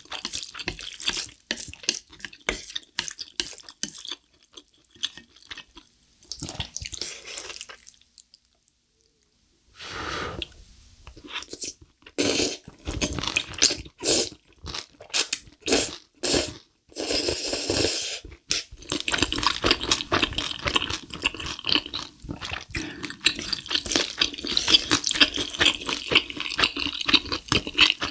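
Close-miked slurping and chewing of saucy spicy black bean instant noodles. There is a short pause about eight seconds in, then a run of loud slurps in the middle, and continuous chewing near the end.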